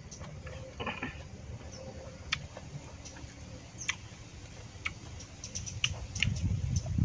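Scattered light clicks and taps of chopsticks against a ceramic bowl while eating, a few strokes a second at most, with low handling and chewing noise that grows louder near the end.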